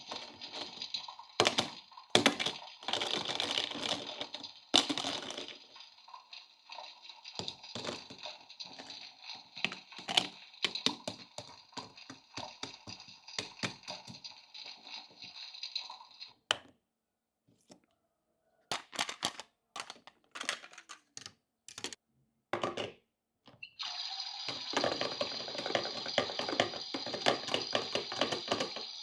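Small plastic toy kitchen pieces being handled, with many sharp clicks and taps. Under them runs a steady hiss that cuts off just past halfway, leaving only scattered clicks, and returns near the end.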